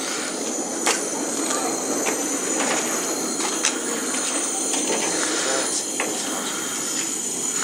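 Railway turntable slowly rotating a narrow gauge steam locomotive, turned by hand: a steady hiss of escaping steam with a rumble, and occasional sharp clicks and clanks from the turntable.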